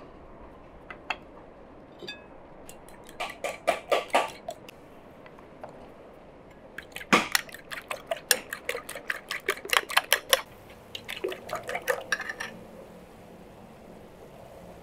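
Fork beating raw eggs in a ceramic bowl, clinking rapidly against the bowl's sides at about six strikes a second. It comes in three runs, the longest in the middle.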